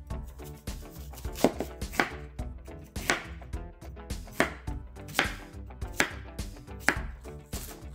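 Chef's knife cutting a peeled Asian pear on a wooden cutting board: about eight separate cuts, roughly one a second, each ending in a sharp knock of the blade on the board.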